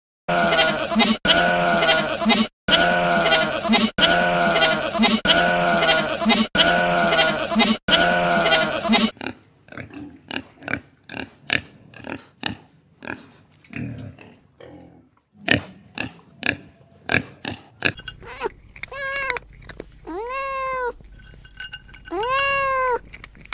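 A run of animal calls: loud pitched cries repeated about every second and a half for the first nine seconds, then softer short calls, then four drawn-out calls that rise and fall in pitch near the end.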